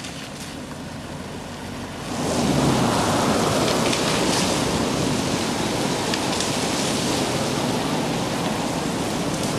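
Heavy rain setting in: a dense, steady hiss that starts suddenly about two seconds in and stays loud.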